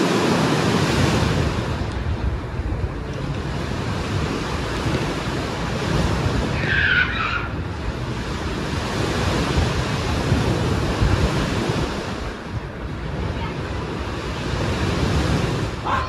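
Sea waves washing onto the shore: a steady wash of surf that rises and falls gently. A single short bird call comes about seven seconds in.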